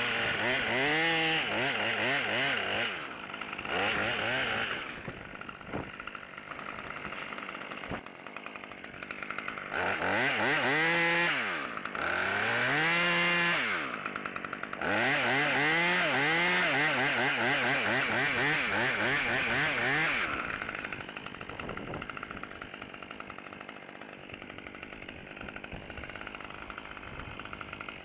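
Husqvarna T540 XP two-stroke top-handle chainsaw revving up and down in three long bursts, dropping back to a quieter idle between them and for the last several seconds.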